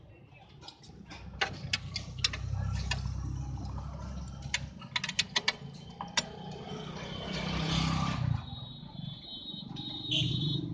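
Scattered clicks and clinks of hands working loose the hoses and fittings on a car's LPG vaporizer. Under them, the low hum of a vehicle engine swells for several seconds and fades out. Near the end a steady high tone comes in.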